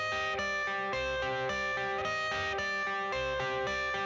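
Background music: an instrumental intro led by electric guitar, with a steady beat.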